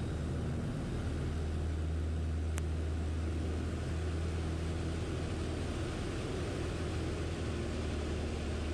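Piper PA-28's piston engine and propeller at full power during a power-on stall, a steady, even drone.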